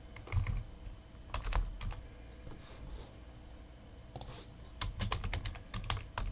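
Typing on a computer keyboard: a few scattered clusters of keystrokes, then a quicker run of keys in the last second and a half.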